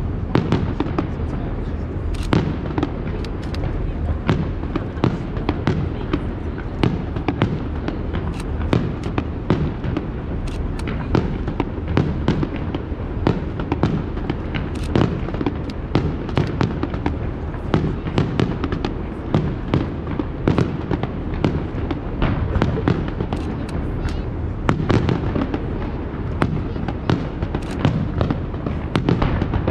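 Aerial fireworks display: shells bursting one after another, several bangs and crackles a second with no pause.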